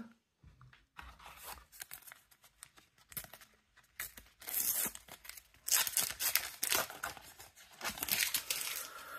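A Panini sticker packet being torn open and its wrapper crinkled, in a string of short noisy bursts that grow louder from about four seconds in.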